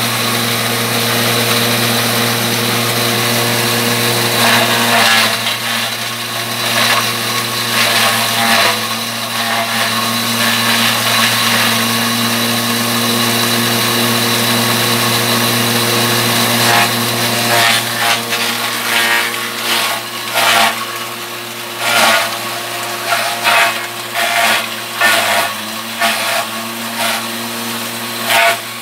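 Electric forage chopper-grinder running with a steady motor hum while cassava stems are fed in and shredded, giving repeated loud crackling bursts that come more often in the second half.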